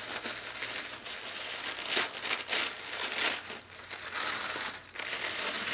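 Tissue paper crinkling and rustling irregularly as hands pull it open and tear it away from a package.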